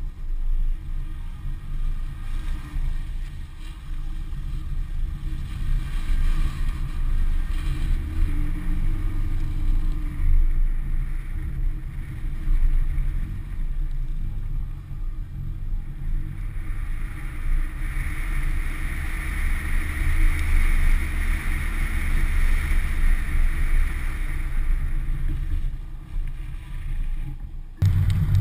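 Volvo 740 GL driving on a snowy road, heard through a camera mounted on the outside of the car: a steady low engine drone mixed with wind and tyre noise. A hissing noise swells for several seconds past the middle, and the sound jumps suddenly louder near the end.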